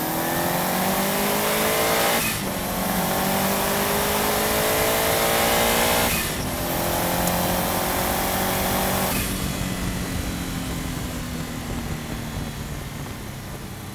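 Subaru Impreza's flat-four engine accelerating hard, its pitch rising through the gears with upshifts about two and six seconds in. About nine seconds in the throttle lifts and the engine note falls away.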